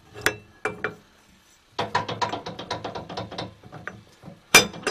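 Steel mixer attachment and its fitting clicking and clattering as it is handled and fitted to a 20-quart mixer: two separate clicks, then a quick rattling run of metal clicks for about two seconds, and a sharp metal clank near the end.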